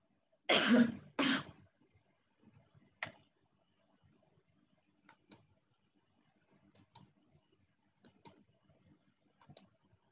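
A person coughing twice in quick succession, then a series of faint, sharp clicks, most in pairs about a fifth of a second apart, every second or so.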